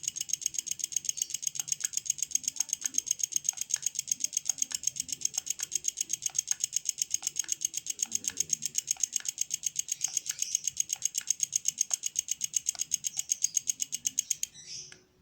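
Black Rhino 200A inverter stick welder running with an added PWM pulse-frequency module: its output makes a rapid, even pulsing at about nine pulses a second that stops suddenly near the end.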